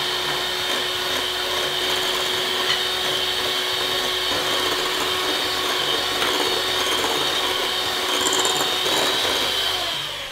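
Electric hand mixer running steadily, its beaters whipping heavy cream in a glass bowl toward stiff peaks, with a constant motor hum and high whine. It winds down and stops near the end.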